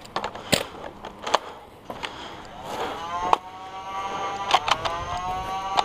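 Several sharp clicks, likely from working a jammed Nerf blaster, then about three seconds in a motor hum that rises in pitch and holds steady.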